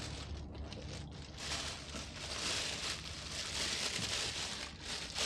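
Rustling and crinkling as a Canon RF 100-500mm lens is worked out of its padded soft carry case. A soft handling noise that picks up after about a second and a half.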